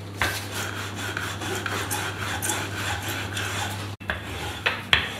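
Wooden rolling pin rolling back and forth over a firm, chilled puff pastry dough on a floured tabletop, a steady rubbing sound. It breaks off about four seconds in, followed by a few light knocks.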